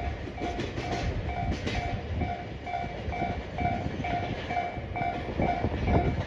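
Japanese level-crossing warning bell ringing its repeating ding a little over twice a second, over the rumble and clatter of a freight train's container wagons rolling past on the rails.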